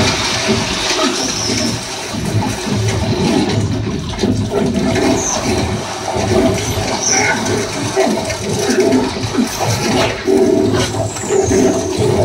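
Film soundtrack of water splashing and rushing in irregular surges, with many small splashes and slaps, played through a surround speaker system in a room.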